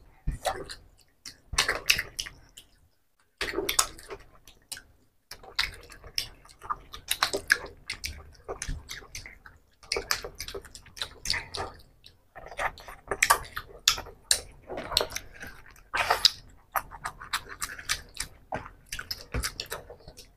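Two people eating fish curry and rice by hand: close, wet chewing and lip-smacking in irregular clicks, with the squish of fingers mixing curry into rice.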